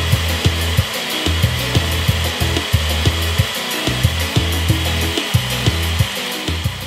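Countertop blender motor running at full speed, blending pistachios, cashews, oats and water into a smooth liquid, with many small knocks from the pieces in the jar; it winds down near the end.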